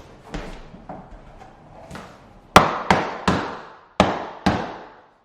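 Vinyl click-lock floor planks being knocked into place with a hammer: a few light taps, then about six sharp, loud knocks from about halfway on.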